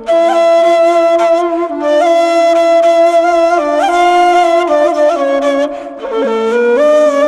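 Background music: a flute playing a slow melody of long held notes over a lower sustained line.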